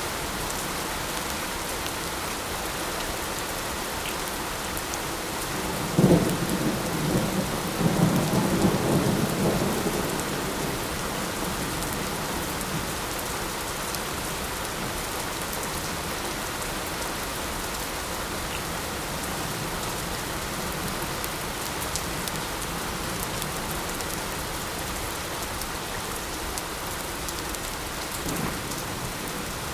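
Steady light rain falling, with a thunderclap about six seconds in that rumbles on for a few seconds, and a fainter rumble of thunder near the end.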